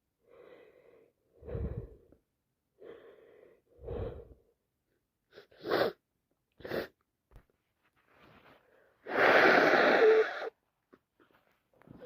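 A woman with flu building up to sneezes with several catching, gasping breaths, then two short, sharp sneezes, followed about nine seconds in by a long, loud burst.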